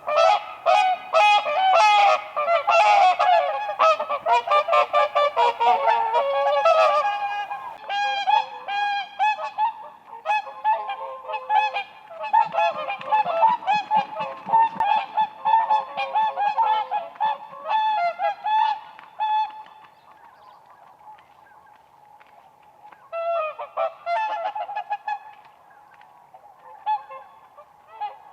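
Whooper swans calling as a group: many overlapping honking calls, dense and loud at first, then thinning out, with a lull later and a short fresh burst of calls before the calls become sparse.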